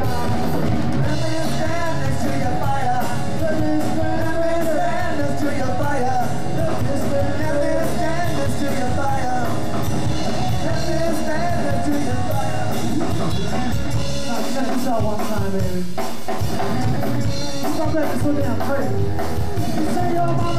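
A rock band playing live: electric bass, electric guitar and drum kit with a steady beat, and a man singing into the microphone.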